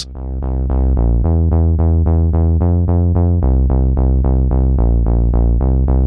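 Arpeggiated synth bass from GarageBand's Alchemy 'Alien Pulse Bass' patch: a steady run of about four short notes a second, each opening bright and quickly dulling. The bass note shifts about a second in and again a little past the middle.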